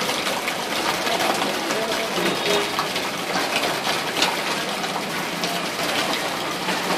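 Floodwater rushing and gushing in a steady, unbroken stream, with faint voices behind it.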